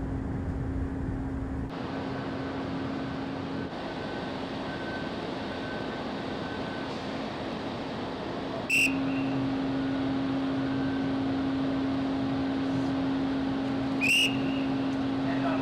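Steady low hum of the ferry Naminoue's machinery while she docks. Two short, shrill whistle blasts come about five seconds apart, with the second as a crewman works the mooring lines: hand-whistle signals used in line handling.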